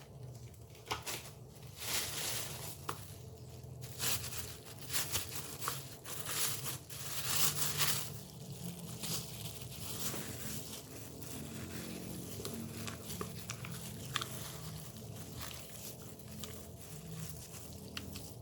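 Plastic packaging rustling and crinkling, with a few light knocks, as items are handled; busiest in the first half, then quieter.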